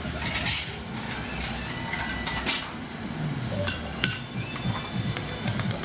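Kitchen utensils and dishes clinking and tapping, a scattered run of short clinks, as food is prepared and served in bowls.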